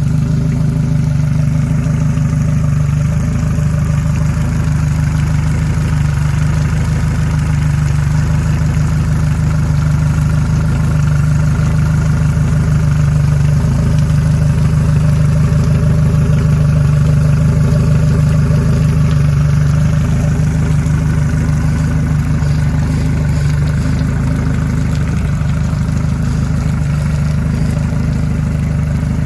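Yamaha F115 four-stroke outboard motor running steadily at idle, with an even low hum and no revving.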